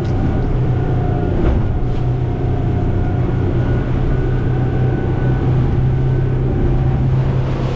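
Twin outboard motors driving the boat at speed: a steady, loud engine drone over the rush of water and spray past the hull.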